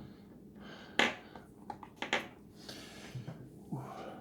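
Lock pick and tension wrench clicking and scraping in the keyway of a Schlage pin-tumbler lock with security pins during single-pin picking. There is a sharp click about a second in and another about two seconds in, with lighter ticks and a short scrape between them.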